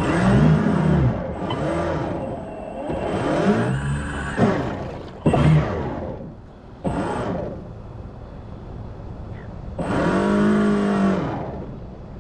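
A small electric motor aboard an RC boat whirring in short bursts, each rising and then falling in pitch as it speeds up and slows, about six times, with the longest burst near the end.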